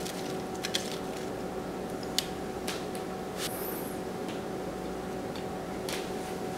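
Metal tongs and pieces of fried chicken being set on a ceramic plate: a few light clicks and taps, the sharpest about two seconds in, over a steady low hum.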